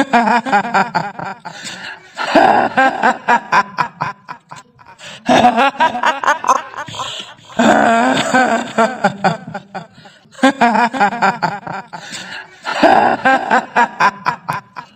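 Kuntilanak ghost laugh: a woman's shrill, stuttering "hihihi" cackle, a staged horror sound effect. It comes in about six bursts, each a couple of seconds long, with short breaks between.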